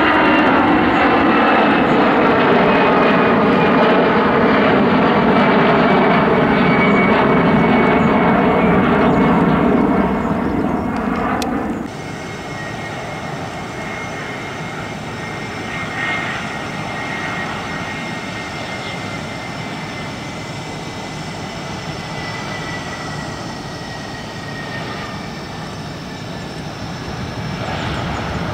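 Airbus A320 jet engines at takeoff climb power, loud, with several tones slowly falling in pitch, cutting off abruptly about 12 seconds in. Then a second A320 on approach and landing: quieter jet noise with a steady high whine and a slowly falling tone, swelling again near the end.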